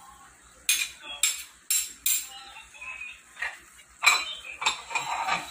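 A metal ladle clinking against a plate and a steel pan as raisins are scraped into the pan: four sharp clinks in about a second and a half, then a busier clatter of utensils and dishes from about four seconds in.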